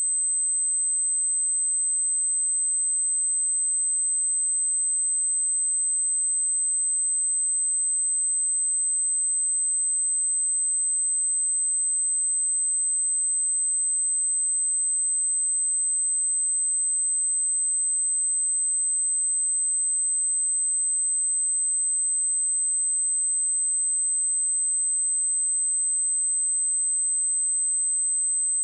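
A steady, unbroken high-pitched 8184 Hz sine-wave test tone, a single pure pitch held at constant level.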